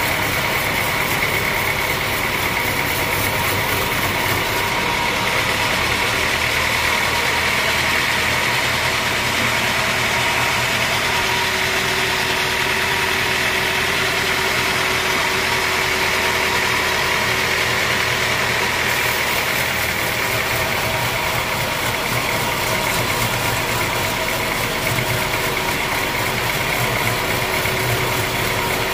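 Horizontal band sawmill running steadily as its blade cuts through a large mahogany block: a continuous machine drone and sawing noise with a steady high whine.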